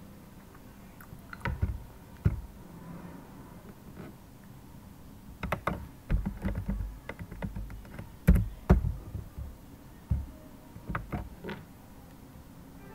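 Computer keyboard keys being pressed in irregular clusters of clicks, some landing as heavier thumps, as a few characters of code are typed and deleted.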